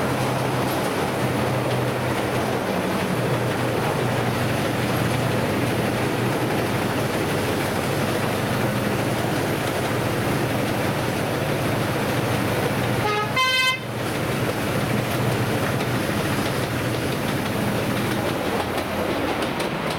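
Miniature-railway diesel locomotive and its passenger cars running through a tunnel, giving a steady engine hum with wheel-on-rail rumble. About 13 seconds in, the horn gives one short toot of under a second.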